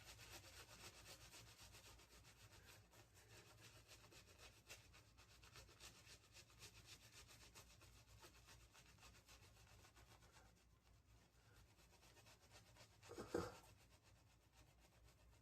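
Faint, quick scratchy rubbing of a Phoenix Peregrino shaving brush working soap lather into stubble on the face. It fades out after about ten seconds, and a short louder noise comes near the end.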